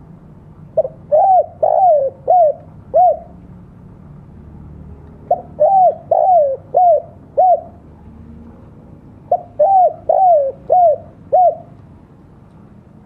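Spotted dove (tekukur) cooing: three phrases of about five short coos each, a few seconds apart, each coo bending down in pitch.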